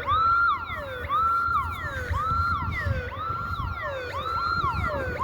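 Electronic alarm siren wailing over and over: each cycle rises quickly, holds a high tone, then slides down, about once a second, with echoes overlapping it. It is a security alarm that has been set off, which the listener takes for a burglar alarm.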